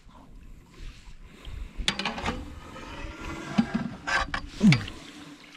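Water splashing and sloshing with several sharp knocks, and a short low grunt falling in pitch about three-quarters of the way through.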